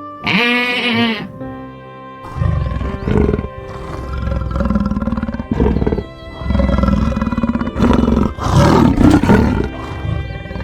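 A sheep-like bleat in the first second, then a large animal's repeated deep, rough roars and growls from about two seconds in, over background music with steady notes.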